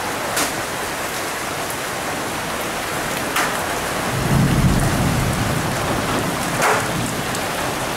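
Heavy rain pouring steadily, with a few sharp knocks of hailstones striking. A low rumble of thunder comes about four seconds in and lasts about two seconds.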